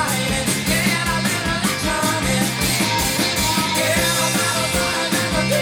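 Rock song playing with a steady drum beat, guitar and a singing voice.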